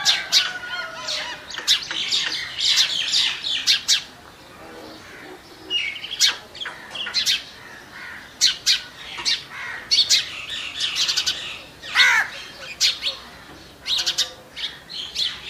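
Birds chirping and calling in quick runs of short, sharp notes, some sliding down in pitch, with quieter stretches between runs.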